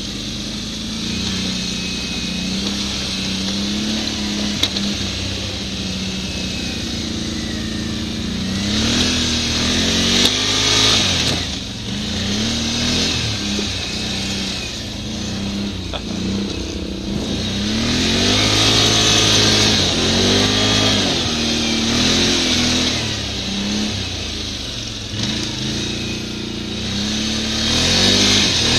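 ATV engine running under load on a snowy trail, its pitch rising and falling again and again as the throttle is opened and eased off. Several stretches of loud hiss come in over the engine as the quad speeds up.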